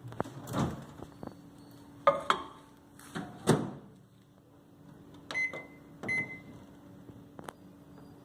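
Microwave oven: a few sharp knocks as the bowl goes in and the door is shut, then the oven running on high with a steady low hum and two short beeps a little past the middle.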